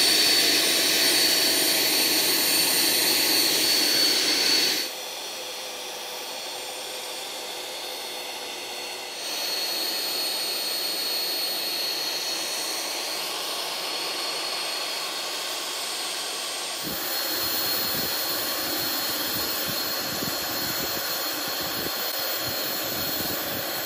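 CAT DG651 60-volt brushless handheld leaf blower running steadily at speed 3 with its trigger held on: a steady rush of air with a thin high fan whine. Its level drops sharply about five seconds in and steps back up twice later.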